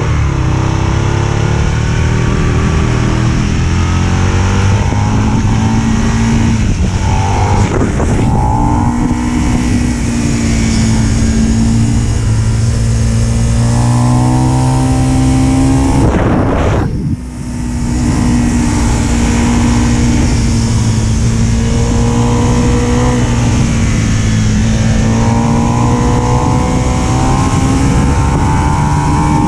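Sport motorcycle engine pulling hard, its pitch rising and falling as the throttle opens and closes and the gears change through bends. There is a brief dip in level about halfway through. Wind rush on the microphone runs underneath.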